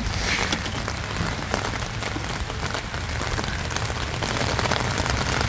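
Heavy rain falling steadily, an even hiss dotted with many separate drop hits.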